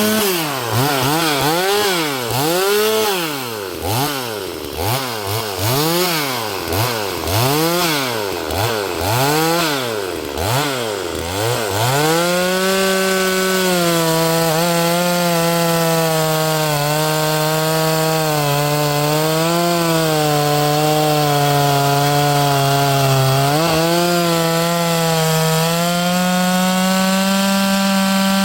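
Two-stroke chainsaw revved up and down about once a second, about a dozen times, then held near full throttle cutting through a maple log, its revs sagging under the load and picking back up toward the end.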